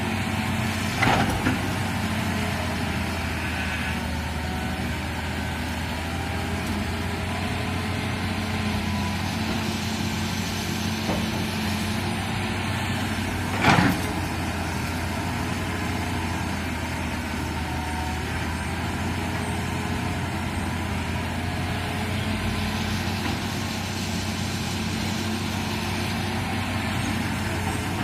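Excavator's diesel engine running steadily under work, with a sharp knock about a second in and a louder one near the middle.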